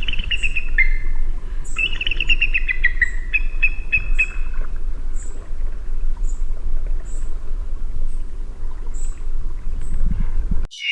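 An eagle calling: two quick runs of high chirps that fall in pitch, then a short run of repeated notes, over a steady low rumble. The recording cuts off abruptly just before the end.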